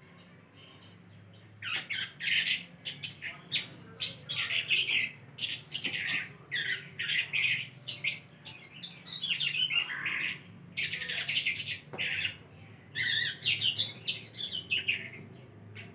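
A caged songbird, an Irani Mashadi Agan, singing in a run of varied chirps and warbled phrases. The song starts about two seconds in, comes in bursts with short pauses, and stops near the end, over a steady low hum.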